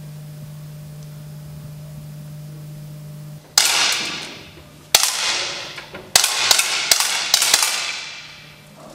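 A low steady hum, which stops about three and a half seconds in. Then 10 m air pistols are fired by a line of shooters in an indoor range: about seven sharp cracks at irregular intervals, some close together, each ringing off in the hall's echo.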